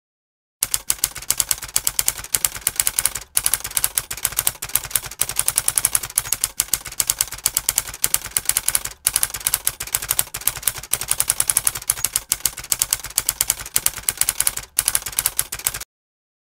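Typewriter keystroke sound effect: a fast, even run of key clicks, broken by three short pauses, stopping shortly before the end.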